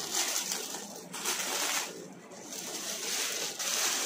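Clear plastic wrapping crinkling and a satin silk saree rustling as the saree is pulled out and unfolded, in several uneven bursts with a short pause near the middle.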